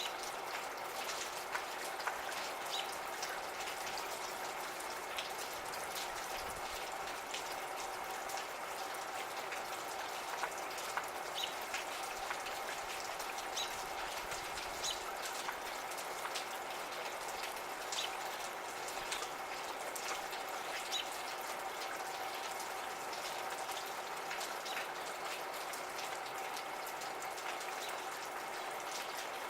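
Gentle steady rain, with single drops pattering and dripping close by. A few brief high bird chirps come through now and then.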